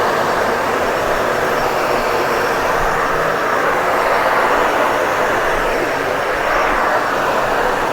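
Dyson Ball Animal 2 Total Clean upright vacuum cleaner running steadily as it is pushed over a rug.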